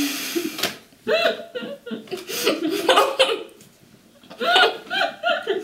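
Women laughing through mouths stuffed full of marshmallows, in two bouts of pulsing laughter, about a second in and again near the end.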